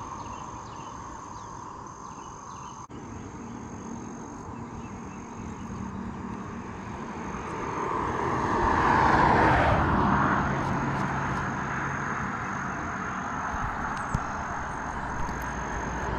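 A motor vehicle passing along the road: its sound builds slowly, peaks loudly about nine seconds in, then fades, and another vehicle begins approaching near the end.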